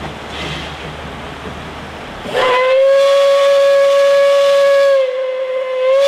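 Steam whistle of the NA class 2-6-2 narrow-gauge tank locomotive 7A blowing one long, steady blast that starts about two seconds in, sagging briefly in pitch and loudness near the end before coming back up. Before the whistle, the working locomotive and train give a steady rushing noise.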